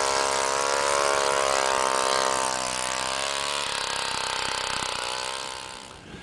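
Small gas engine of a hand-held power ice auger running steadily while drilling through lake ice; its pitch shifts a little about two-thirds of the way through, and the sound fades out near the end.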